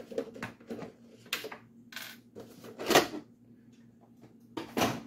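Clicks and knocks of plastic as the body is taken off a 1/10-scale Arrma Big Rock RC monster truck: about four sharp taps, the loudest about three seconds in.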